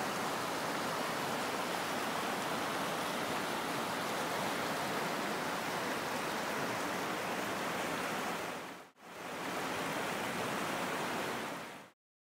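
River rapids rushing over rocks in a steady, loud roar of water. The sound dips out for an instant about nine seconds in, then cuts off suddenly near the end.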